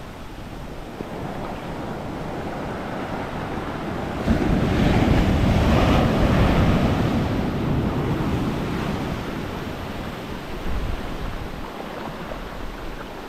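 Ocean surf breaking and washing up a sandy beach, with wind on the microphone. About four seconds in a wave breaks and the rush of water swells sharply, then eases off over the next few seconds.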